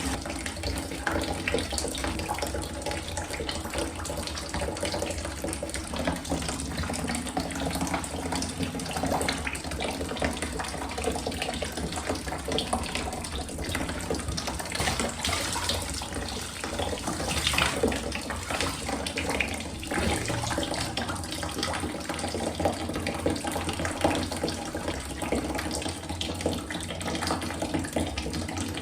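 Tap water running steadily, with irregular splashing as it hits water or a surface.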